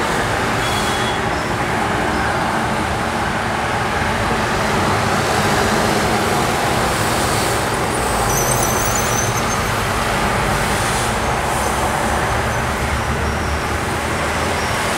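Road traffic on a wide street: a steady hiss of passing cars' tyres and engines, swelling a little around the middle as a minibus drives by.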